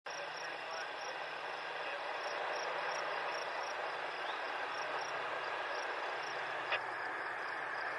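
Outdoor ambience with a steady hiss and a high insect chirp repeating about three times a second. There is one sharp click about two-thirds of the way through.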